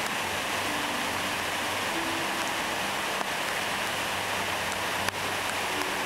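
A tall waterfall's falling water rushing steadily, an even, unbroken wash of noise.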